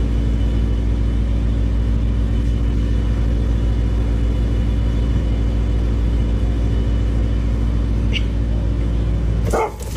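Steady low rumble with a constant hum, like a car running, heard from inside the vehicle.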